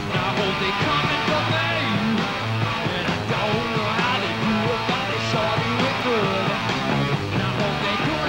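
Live hard rock band playing at full volume: electric guitar, bass and drums, with a man singing over them.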